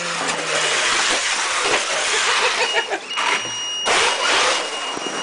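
Radio-controlled rally car driving over packed snow and ice, its wheels hissing as they spin, with louder surges about four seconds in. A steady high-pitched whine from the car's drive joins about three seconds in.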